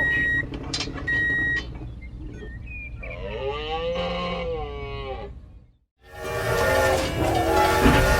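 Two short electronic beeps, then a wavering horn-like tone that bends up and down for about two seconds. After a sudden cut to silence, a loud layered blend of steady horn-like tones starts about six seconds in.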